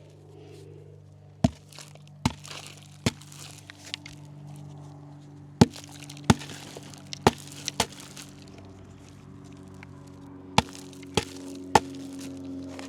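About ten sharp cracking knocks in three groups: lumps of bagged concrete mix that has set up in the bag being struck and broken apart. Background music plays underneath.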